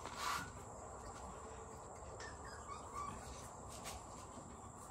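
Outdoor background with insects droning steadily at a high pitch, a brief rustle about a third of a second in, and a few faint chirps.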